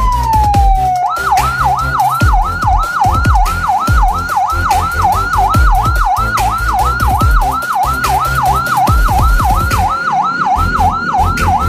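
Electronic ambulance siren: a falling tone for about the first second, then a fast yelp sweeping up and down about three times a second. This fast yelp is the pattern that signals an ambulance carrying an emergency patient.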